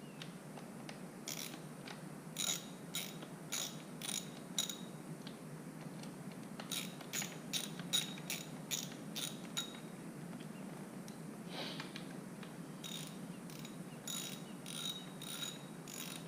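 Ratchet wrench clicking in three runs of quick strokes, about two to three clicks a second, tightening the bolts on a motorcycle's front wheel axle. There is a brief scrape between the second and third runs.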